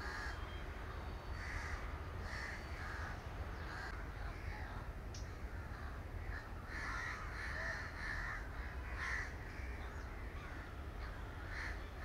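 Birds calling: short harsh calls repeating irregularly, a cluster of them a little past the middle, over a low steady background rumble.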